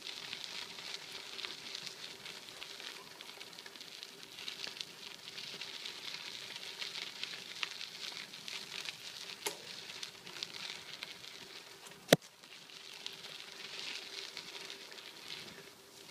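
Bicycle tyres rolling over a gritty dirt trail, a steady crackling hiss, with a faint steady hum underneath. One sharp click about twelve seconds in.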